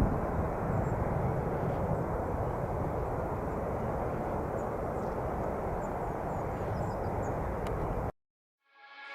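Jet airliner engines running with a steady, dense rumble, which cuts off abruptly about eight seconds in. Music fades in just before the end.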